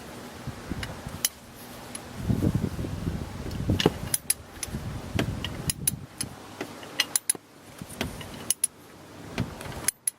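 Hand tools and metal parts clinking and clicking at irregular intervals, with handling noise, as the accessory belt tensioner is worked off a Ford F-150's engine.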